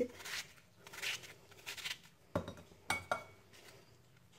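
Kitchen knife cutting into a raw apple held in the hand: three short crisp slicing strokes, then a few sharp clicks on a ceramic bowl about two and a half to three seconds in.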